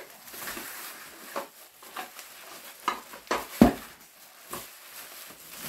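Plastic bubble wrap rustling and crinkling as it is unrolled by hand, with scattered small crackles and one sharp knock about three and a half seconds in.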